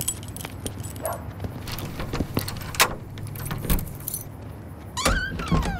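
A bunch of keys jangling and clicking in a door lock, then a door creaking open near the end.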